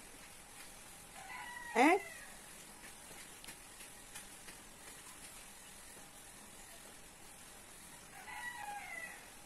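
Two short animal calls. The first, about two seconds in, ends in a sharp upward sweep and is the loudest sound. The second, near the end, falls in pitch.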